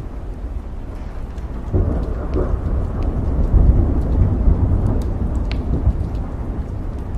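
Steady rain with a roll of thunder that rumbles in about two seconds in, peaks around the middle and slowly fades; scattered drops tick through it.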